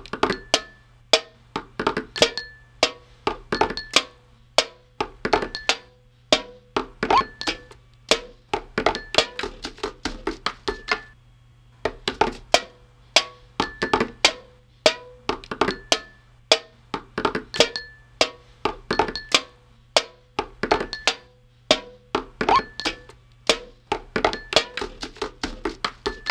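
Instrumental backing music: a steady beat of sharp percussion hits, a few to the second, with short pitched notes between them.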